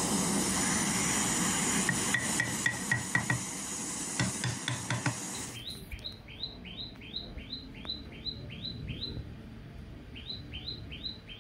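Handheld gas torch flame hissing steadily as it heats a spring-steel strip, with a few clicks. It cuts off suddenly about halfway, leaving a bird chirping repeatedly, short notes falling in pitch about three a second.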